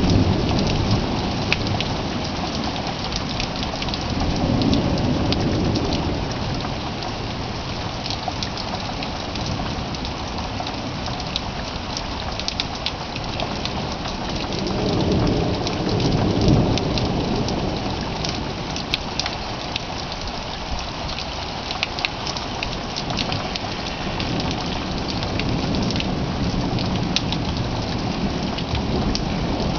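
Thunderstorm: steady rain with many sharp drip clicks close by. Low rolls of thunder swell up about four seconds in, again around fifteen seconds in, and once more near the end.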